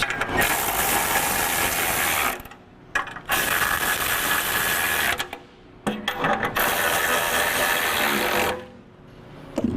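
Ratchet tightening bolts in three runs of about two seconds each, with short pauses between them. This is one run for each of the three bolts holding a bumper end cap on.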